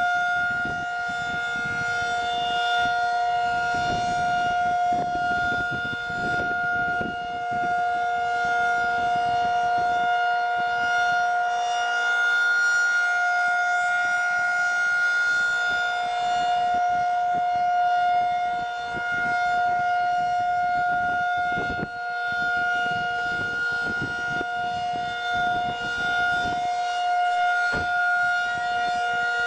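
Federal Signal 2001-SRN DC-powered civil defense siren sounding a full-alert steady tone. It holds one unchanging pitch, with the loudness swelling and easing slightly.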